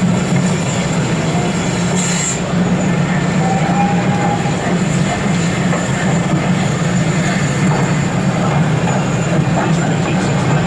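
N gauge model train running on an exhibition layout, with a steady low hum throughout and a faint brief squeal about four seconds in.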